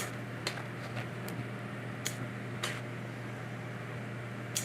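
A few soft, separate clicks of roasted root vegetables being set down on a plate, over a steady low mechanical hum.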